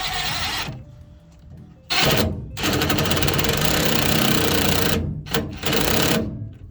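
A handheld power tool driving bolts: a short burst, then about four seconds of running with a rapid rattling hammer, briefly interrupted near the end.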